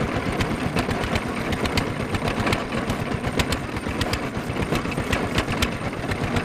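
Diesel engine driving the tubewell boring pump, running steadily with a fast even chugging and frequent sharp ticks over it.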